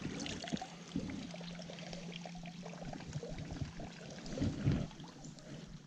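Shallow river water trickling and sloshing right at the microphone, held just above the surface, with small irregular splashes and a louder slosh about four and a half seconds in.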